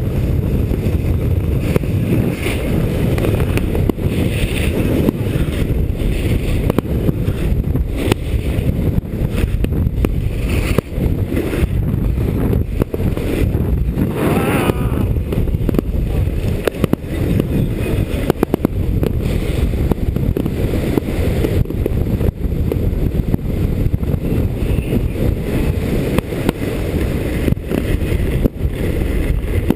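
Wind buffeting a GoPro's microphone during a snowboard run, a loud steady rumble, with the board scraping over packed snow and occasional short knocks.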